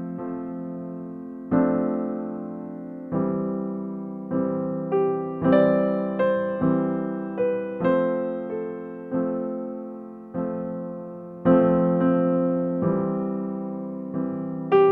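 Background music played on a piano-like keyboard: slow chords and single notes, each struck and left to fade.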